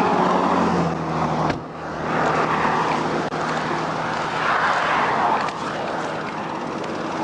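Highway traffic noise. A steady engine hum cuts off about one and a half seconds in, then road noise from passing vehicles swells and fades twice.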